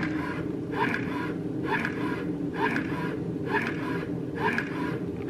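Plug-in electric breast pump running: a steady motor hum with a rhythmic suction cycle repeating about once a second.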